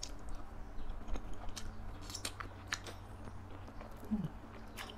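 Close-miked chewing of soft food, boiled egg yolk, with wet mouth clicks and smacks, and a short low hum from the eater about four seconds in.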